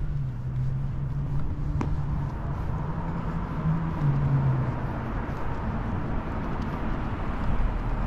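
A low, steady engine hum that stops about halfway through, over an even outdoor background noise.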